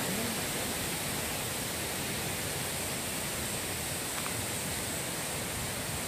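Steady rush of water from a mountain stream and its waterfalls, an even hiss with no breaks.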